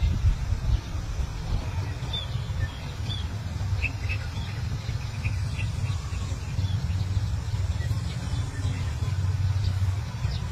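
Outdoor ambience: a steady low rumble, with small birds chirping faintly a few times in the middle.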